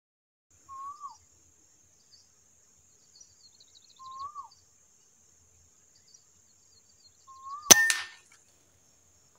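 A bird gives a short call three times, about three seconds apart, each rising a little and then dropping. About three-quarters of the way through, a PCP air rifle fires with one sharp crack, followed at once by a fainter knock.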